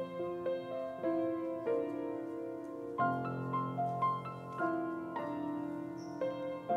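Slow, gentle solo piano music, with sustained notes and chords that change about every second.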